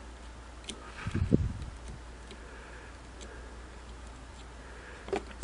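Light clicks and a brief low knocking about a second in, from hand tools being handled on a workbench while a wire splice is held in a hemostat and soldered. A faint steady hum runs underneath.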